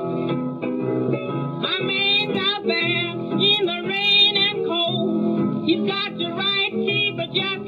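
1936 blues record on a 78 rpm disc: piano and string bass accompaniment, with a woman singing from about two seconds in. The sound is dull and lacks treble, as on an old shellac recording.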